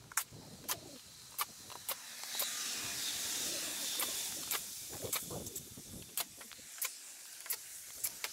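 Milwaukee cordless drill driver backing screws out of a steel wainscoting panel: the motor whirs for a few seconds in the middle. Sharp clicks come every half second or so.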